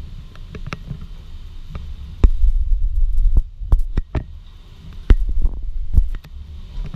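The Waddon Engine, a stationary steam engine, running: a low throb broken by sharp clicks and knocks about a second apart, getting heavier for about a second twice, about two and about five seconds in.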